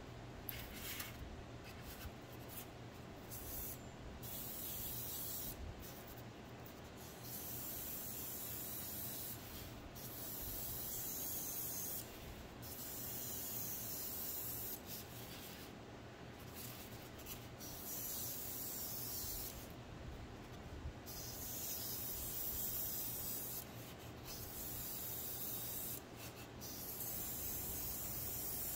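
Badger Patriot 105 airbrush spraying clear varnish at about 13–14 PSI: a high hiss that starts and stops as the trigger is worked, in a string of bursts lasting one to a few seconds each.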